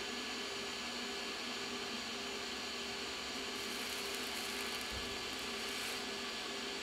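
TIG welding arc hissing steadily as it burns on an old copper penny laid on a mild steel plate, with a little more high hiss for a couple of seconds in the middle.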